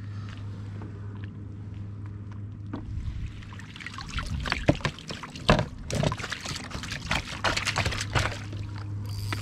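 Water splashing and pouring as a landing net with a perch in it is lifted from the lake beside a kayak. The water streams and drips off the net in a busy run of splashes from about four seconds in, over a steady low hum.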